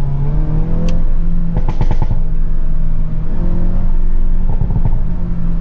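Hyundai Kona N's 2.0-litre turbocharged four-cylinder engine and exhaust under way, heard from the cabin with the windows down: the note rises early on and then holds steady, with a short run of sharp cracks about two seconds in.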